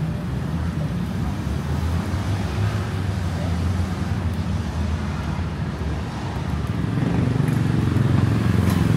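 City road traffic passing: a steady low rumble of vehicles that swells near the end.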